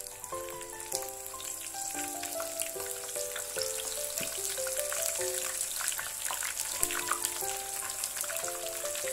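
Chicken pieces deep-frying in hot oil in a frying pan: steady sizzling and crackling as the pieces are lowered in. Under it runs soft background music, a simple melody of held single notes.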